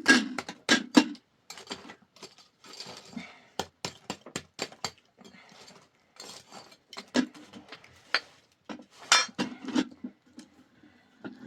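Irregular clinks and knocks of dishes and metal utensils being handled, with some brief scraping.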